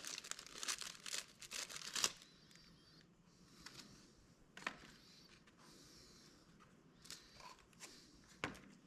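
Packaging crinkling and tearing as a new part is unwrapped, for about two seconds, then a few scattered light clicks and taps.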